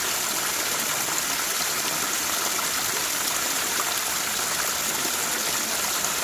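Mountain stream running, a steady, even rush of water.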